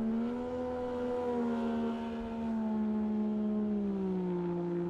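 Outboard motor of a small river boat running at speed, a steady droning note that slowly falls in pitch.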